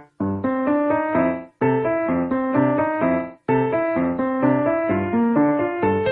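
Background music: a piano-like keyboard tune in short phrases, each broken off by a brief silence.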